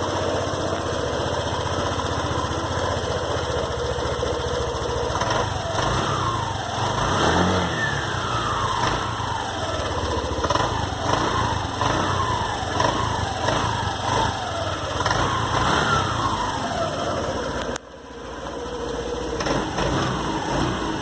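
Honda PCX 150 scooter's single-cylinder engine through its stock exhaust, idling steadily, then revved in a series of quick throttle blips, each rising and falling in pitch, before settling back to idle near the end.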